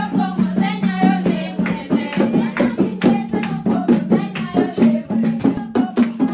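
A group of restaurant staff singing a birthday song together over a steady beat of hand claps and drum strokes, about four a second.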